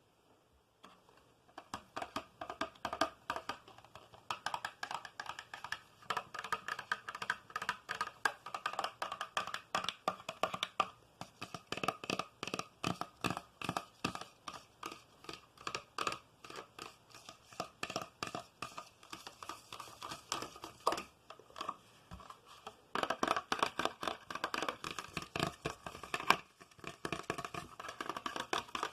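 Fingers tapping quickly on an object for ASMR, a rapid run of crisp clicks several a second. It starts about a second and a half in and briefly eases off about three-quarters of the way through.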